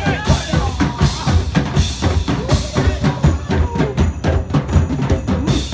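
Loud music with a steady, heavy drum-kit beat and strong bass drum.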